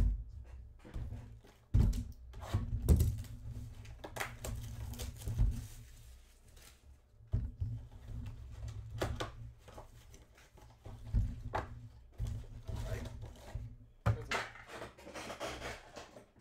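Thumps and rustling as a box of trading card packs is opened and handled on a table, with several sharp knocks. Foil packs crinkle near the end.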